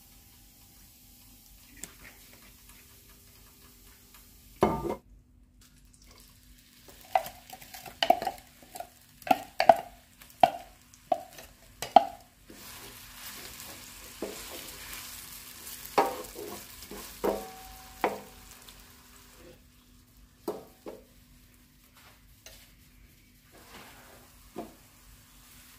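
Chopped onion frying in olive oil in a skillet: a sharp knock, then a run of ringing taps of a utensil against the pan as the onion goes in. The onion then sizzles softly while it is stirred, with more clacks of the utensil on the pan.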